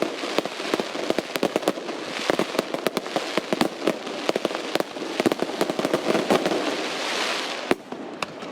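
Fireworks display: a dense, rapid run of cracks and pops from bursting aerial shells. A hissing crackle swells about three-quarters of the way through, then cuts off suddenly shortly before the end.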